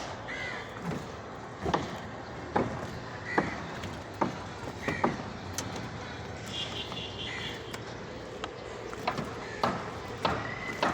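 Building-site work noise: irregular sharp knocks and bangs, roughly one a second in clusters, over steady background noise, with a few short high squeaks.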